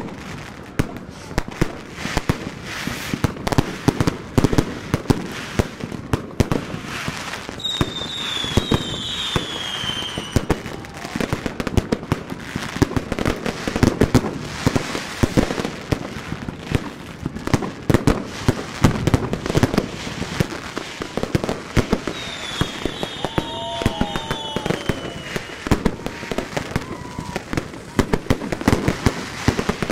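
Fireworks going off all around in rapid, irregular bangs and crackles, near and far, twice with a high falling whistle.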